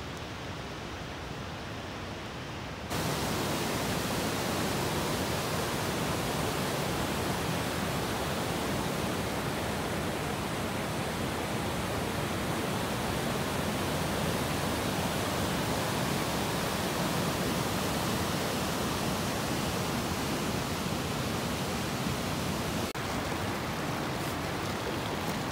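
Steady rush of mountain streams swollen after rain, first a waterfall and then a fast glacial stream over stones, getting louder about three seconds in.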